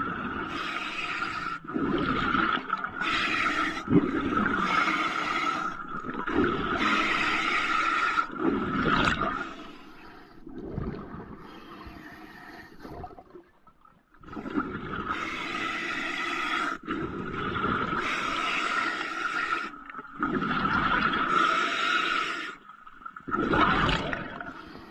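Diver breathing underwater through a regulator fed by a surface compressor hose: repeated rushes of inhaled air with a whining tone, and gurgling exhaled bubbles, with a quieter pause about halfway through.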